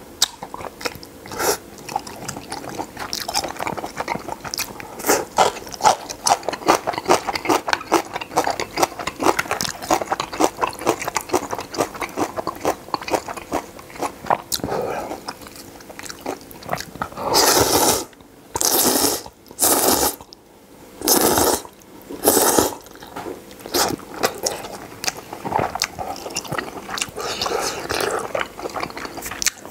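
Close-miked eating of spicy noodle soup: steady wet chewing and small slurps. A little past halfway come about five loud slurps of noodles in quick succession, then chewing again.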